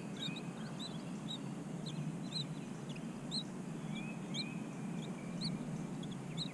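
Wild birds calling from the shoreline trees: short high chirps about once a second, with a few longer slurred whistles in between, over a steady low background rumble.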